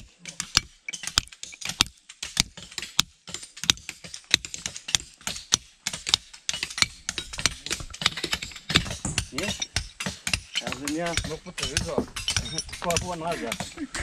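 Rapid, irregular clicking and knocking, several sharp clicks a second, with people talking in the second half.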